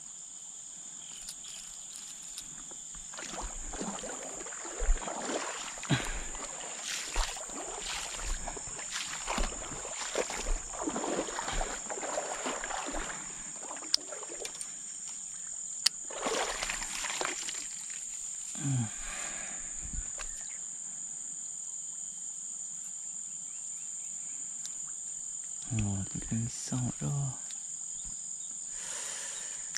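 Steady, high-pitched drone of insects, with irregular rustling and scuffing handling noises through the first half, and a brief mutter of a voice near the end.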